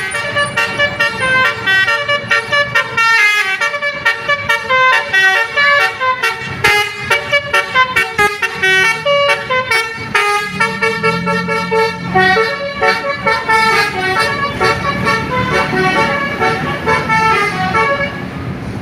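Telolet Basuri multi-tone bus air horn playing a fast tune of short, rapidly changing notes, stopping near the end.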